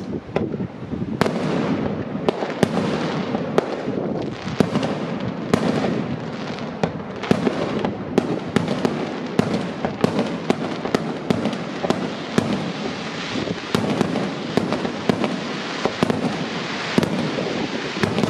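Fireworks display: aerial shells bursting one after another, with sharp bangs one or two a second over a continuous crackle and rumble.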